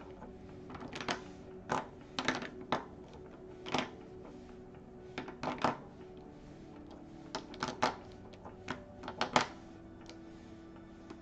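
Niutop plastic paint pens clicking and clacking against each other and the tabletop as they are moved by hand into colour order: irregular clicks, single and in quick clusters, with the loudest knock near the end.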